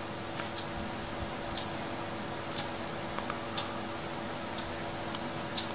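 Pen scratching on paper while resistor zigzags are drawn, with a faint tick about once a second over a steady low hum.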